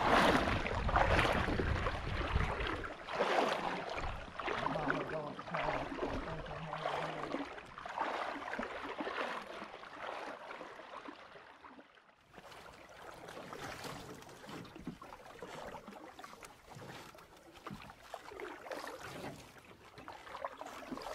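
Wading through shallow river water, with a splash at each stride about once a second that fades as it goes on. After a sudden break about twelve seconds in, fainter splashing and water sounds.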